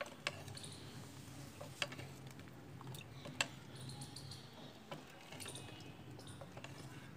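Plastic ladle knocking lightly against a steel pot while gulab jamun are pressed down into sugar syrup: four sharp clicks about a second and a half apart, over a low steady hum.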